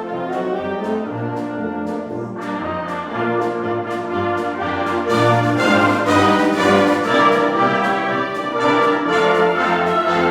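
Concert wind band playing, with brass to the fore over a steady beat of about two strokes a second; the band grows louder about five seconds in.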